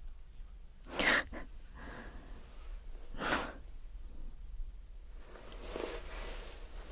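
A person's breathing close to the microphone: two short, sharp exhales about two seconds apart, the first the loudest, then a softer, longer breath near the end.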